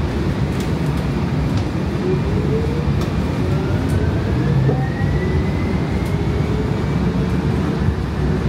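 Siemens S700 light-rail car in motion, heard from inside: a steady rumble of wheels and running gear, with the electric traction drive's whine rising in pitch from about three and a half seconds in as the train picks up speed.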